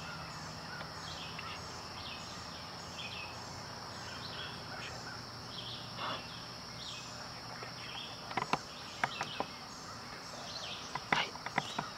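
Field ambience: a steady high insect buzz, with songbirds chirping on and off and a short chirp repeating evenly overhead. A few sharp clicks come in the second half.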